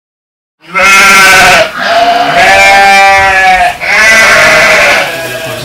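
An animal bleating, as sheep or goats do: three long, loud pitched calls, the first starting about half a second in.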